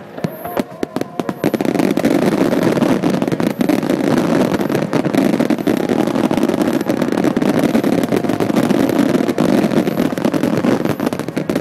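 Aerial firework shells bursting. A few separate bangs come first, then from about a second and a half in a dense, continuous barrage of overlapping booms and crackles.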